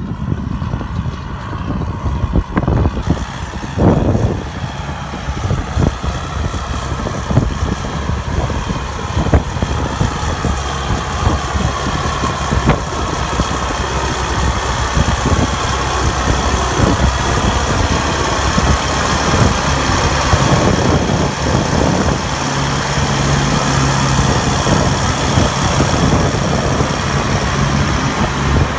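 John Deere tractor's diesel engine running steadily under load as it pulls a scraper land leveler through loose soil. The engine note grows louder about two-thirds of the way in as the tractor comes close.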